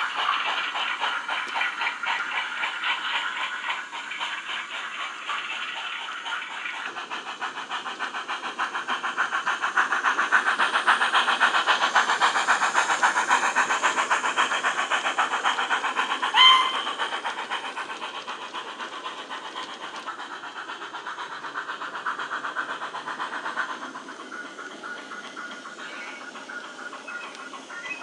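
Wheeltappers DCC sound decoders in OO-gauge USA tank model steam locomotives playing rapid steam exhaust chuffs through their small speakers, with the wagon wheels running on the model track. The chuffing grows louder as the train passes close, then fades away. A brief shrill note sounds about halfway through.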